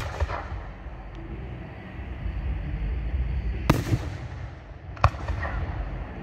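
Aerial firework shells bursting in three sharp bangs: one at the start, one about three and a half seconds in and one about five seconds in. Brief crackling follows the first and last.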